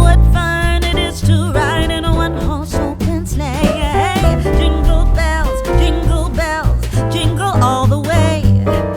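Background music: a sung song with guitar and a steady beat.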